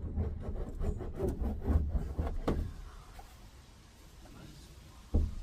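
A run of quick, irregular knocks and taps on the van's sheet-metal roof panel as sound-deadening mat is pressed and rolled onto it, then a quieter stretch and a heavy thud near the end.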